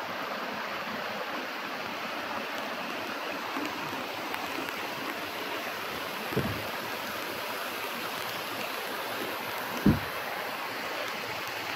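River water running after rain, a steady even rush of flowing water. Twice, about six and ten seconds in, a brief low thump.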